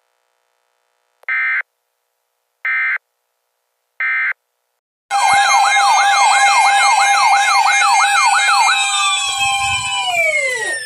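Emergency alert tones: three short bursts of data tones about a second apart, then a loud electronic siren-style alarm starts about five seconds in. The alarm is a rapidly wavering tone, about three wavers a second, over several steady high tones, and near the end all of them glide down in pitch together.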